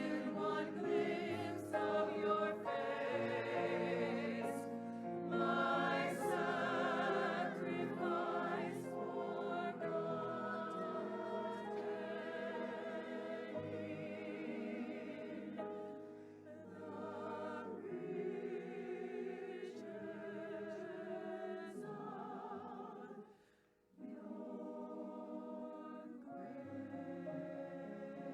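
Choir singing sustained, slow phrases with vibrato over a steady low accompaniment, breaking off briefly near the end before resuming.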